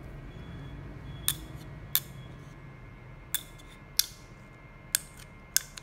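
Six sharp metallic clicks, about a second apart, as a steel screwdriver tip taps and snaps against the magnet ring and coil cores of a levitating speaker's base.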